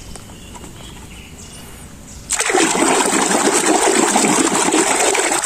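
Water running and splashing, starting suddenly about two seconds in, as a muddy toy animal is rinsed clean.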